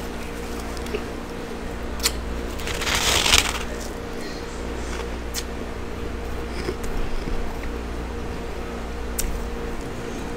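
A person biting and chewing a chunk of hard frost scraped from a deep freezer: one loud crunch about three seconds in, then scattered small crackles, over a steady low hum.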